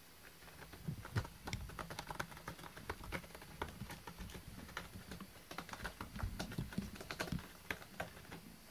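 A cat's claws and paws working a corrugated cardboard scratcher: a quick, irregular run of small scratchy clicks that stops just before the end.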